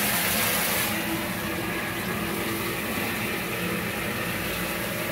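Water running steadily from a bathtub tap into the tub, a continuous rush whose hiss softens about a second in.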